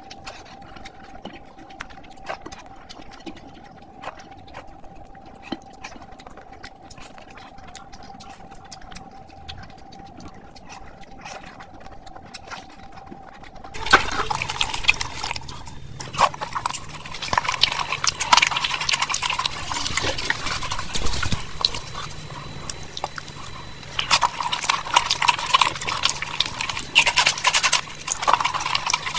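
Close-miked eating by hand. First there are quiet finger-and-rice clicks over a faint steady hum. About 14 s in, this gives way to much louder, wet chewing, lip-smacking and crackling bites of spicy curry, rice and bread.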